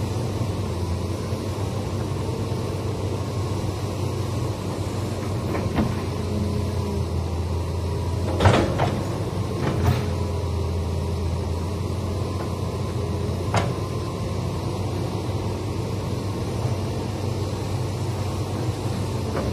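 Tracked hydraulic excavator's diesel engine running steadily as the machine swings and digs. A few sharp knocks, the loudest about eight and a half seconds in.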